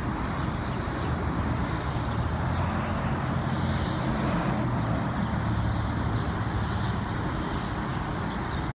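Road traffic passing, a steady rush of vehicles with a low engine hum that swells from about a second in and fades near the end.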